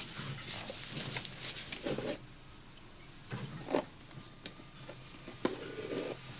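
Clothes rustling and shifting as someone rummages through a drawer of shirts by hand, with a few small knocks against the drawer's wood.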